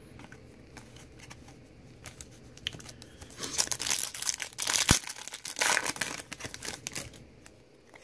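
A trading-card pack wrapper being torn open by hand, crinkling and ripping for about four seconds, starting about three seconds in, with a few light clicks of card handling before it.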